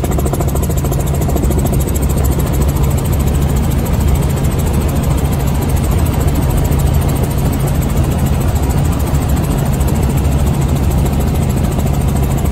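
Light helicopter's engine and rotor running steadily in cruise flight, heard from inside the cabin as a loud, constant low drone.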